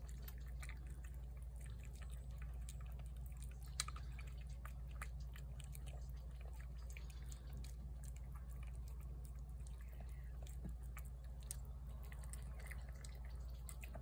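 A feral cat eating shredded chicken from a plate: faint, irregular wet chewing and smacking clicks, with one slightly louder click about four seconds in, over a low steady rumble.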